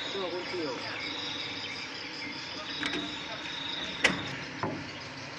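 A few sharp clicks over a quiet steady background with a faint high whine; the loudest click comes about four seconds in.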